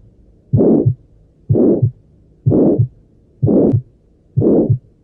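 Heart sounds at about one beat a second, five beats in all. In each beat a murmur fills the gap between the first and second heart sounds: a systolic murmur, as in aortic stenosis, where the narrowed aortic valve makes the blood flow turbulent.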